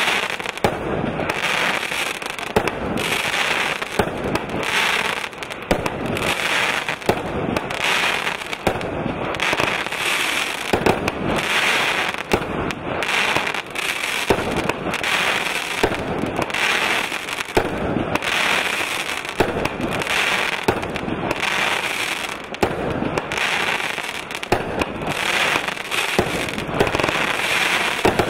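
Vulcan 'Creeper' consumer fireworks cake firing shot after shot, about one a second without a break. Each rising tail ends in a burst of gold crackling stars.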